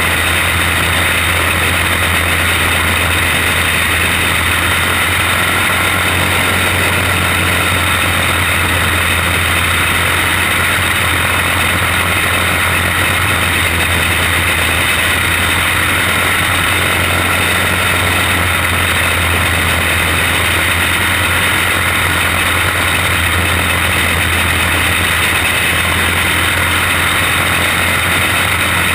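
Single-cylinder racing kart engine running at speed, heard onboard the kart as a steady, unbroken drone.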